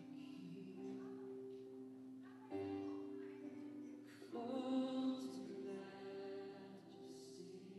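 A contemporary worship song playing: soft singing on long held notes over a sustained accompaniment, moving to new notes a couple of times.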